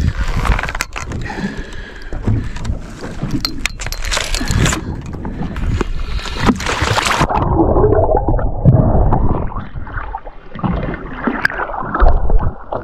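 Water sloshing and splashing around a camera held at the water's surface; about seven seconds in the camera goes under and the sound turns muffled, with underwater gurgling.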